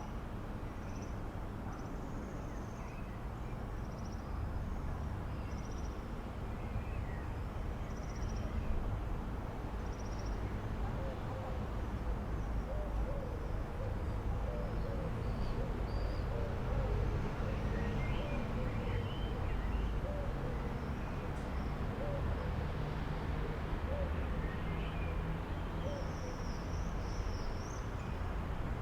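Birds calling outdoors: short high chirps come and go, and lower repeated calls run through the middle, over a steady low rumble.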